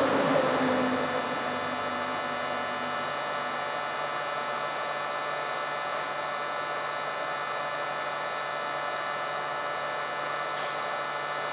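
A steady motor-like whirring hum over a rushing noise, holding even, with a slightly louder rustling stretch in the first second.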